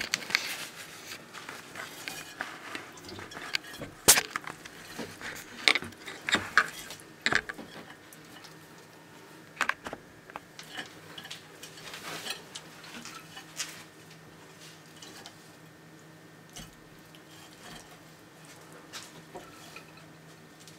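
Dumeril's monitor lizard chewing a chick: irregular crunches and clicks of jaws on flesh and bone, most frequent and loudest in the first half, with a sharp crack about four seconds in, then thinning out.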